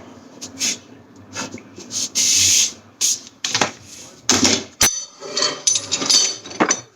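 Hand tools and metal parts being handled: irregular clicks, scrapes and knocks, with a short hiss lasting about half a second a little after two seconds in and a sharp knock near the five-second mark.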